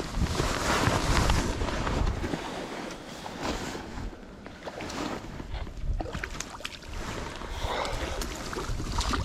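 Rushing water of a small mountain stream, with low wind and handling rumble on the microphone and scattered splashes and knocks while a hooked brook trout is brought in. It is loudest in the first couple of seconds.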